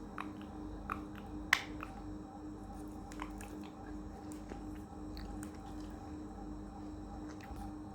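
Parrot's beak nibbling and cracking food: scattered small clicks, with one sharp crack about a second and a half in, over a steady low hum.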